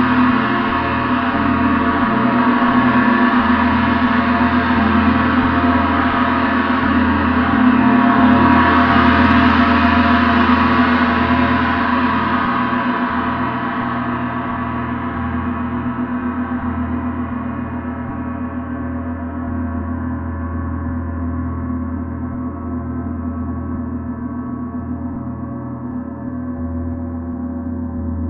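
A gong ringing continuously, a dense wash of many sustained overtones with no distinct strikes. It swells to a peak about eight to ten seconds in, then slowly dies away, the high overtones fading first and leaving the lower hum.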